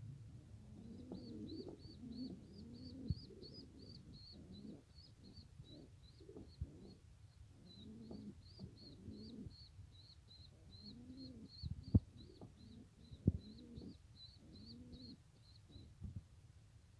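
Pigeon squab begging while the adult feeds it: a faint, steady run of short high peeps, about three a second, over softer low sounds. Two sharp knocks come in the last third.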